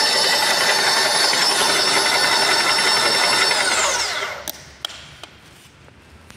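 Tsuzumi X25 electric airless paint sprayer running steadily, then switched off about three and a half seconds in, its motor and pump winding down to a stop with a falling whine. A few light clicks follow.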